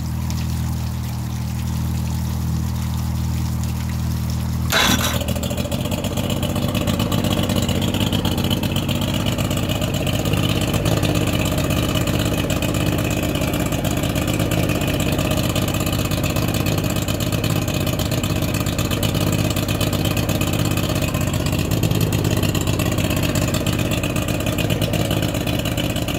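2001 Mercury 50 hp two-stroke outboard running steadily with its lower unit in a water test tank. A single sharp knock comes about five seconds in, after which the engine sounds fuller and brighter.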